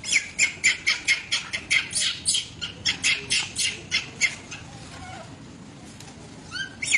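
Baby long-tailed macaque crying in a rapid string of shrill squeals, about four a second, which stop about four and a half seconds in. A few rising cries follow near the end.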